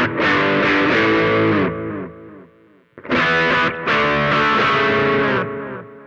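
Electric guitar played with a distorted tone through a Nig AS1 amp-simulator pedal used as a preamp into the audio interface, heard over the monitors. Two short phrases of notes, the first dying away about two seconds in and the second starting about three seconds in and ringing out near the end.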